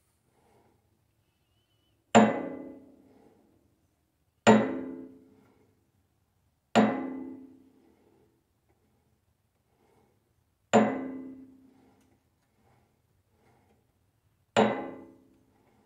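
Five sharp metallic taps of a brass bar on a Stihl 031 chainsaw cylinder clamped in a lathe chuck, each one ringing and dying away in about a second. The high side is being knocked over to true the cylinder to within half a thousandth on the dial indicator.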